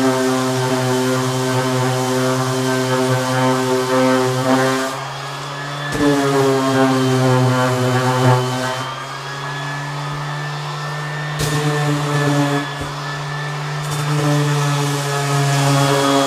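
Ridgid random orbital sander running on a wooden leg: a steady motor drone with the hiss of the abrasive on the wood. The hiss drops out a few times as the sander comes off the work, and the motor's pitch shifts about a third of the way in.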